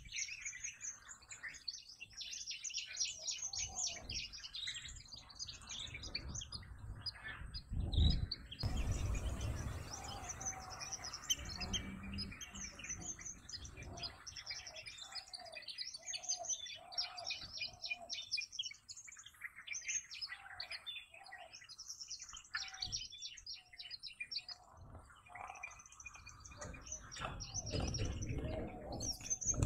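Many wild birds chirping and calling together in quick, high trills, with a few repeated lower notes from another bird in the middle. A brief low rumble comes about eight seconds in and again near the end.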